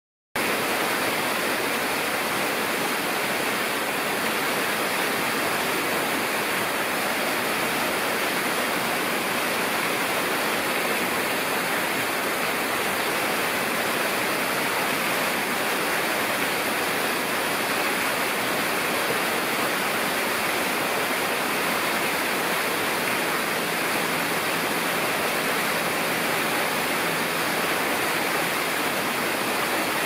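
Steady rushing water, like the constant pour of an aviary waterfall into a pond, unbroken and even in level.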